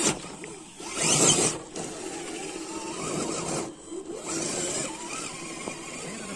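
Electric motor and gears of an RC rock crawler whirring, the pitch rising and falling with the throttle. Loud bursts of scrabbling tyres and loose dirt come at the start, about a second in and again past four seconds.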